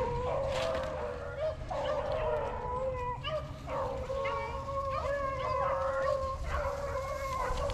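A pack of beagles baying on a rabbit's trail, several dogs' long drawn-out bawls overlapping one another without a break.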